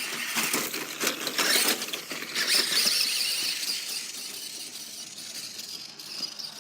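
Toy RC car's small electric motor whining as it drives, its pitch wavering, with rattling clicks and knocks in the first two seconds.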